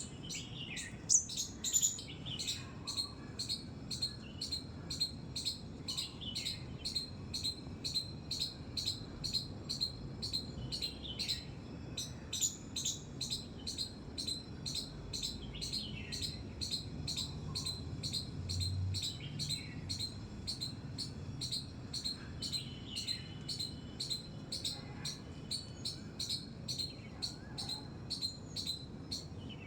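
A squirrel giving its repeated high-pitched squeaking call, short sharp chirps at an even rhythm of roughly two a second, kept up without a break.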